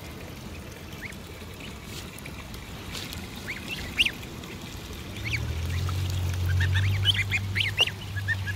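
Goslings and ducklings peeping: a few short high calls at first, then many overlapping ones from about five seconds in. A low steady hum comes in at about the same time, with one sharp click a little before.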